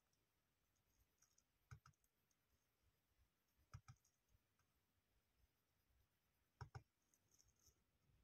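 Faint double clicks from a computer pointing device's button as menu items are selected, three pairs of clicks about two seconds apart, over near silence.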